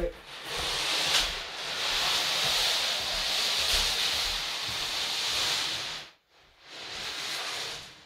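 A steady hiss that cuts off sharply about six seconds in, then comes back briefly near the end.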